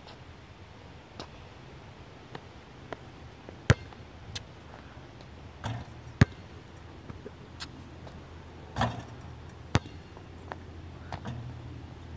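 A basketball bouncing on an outdoor court and striking the hoop: about a dozen sharp thuds at uneven intervals, the loudest about a third and halfway through.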